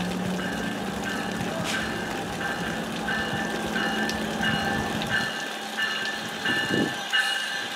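A warning bell dings steadily, about twice a second, as an NJ Transit push-pull train approaches the station platform. Under it a low steady hum fades out about five seconds in.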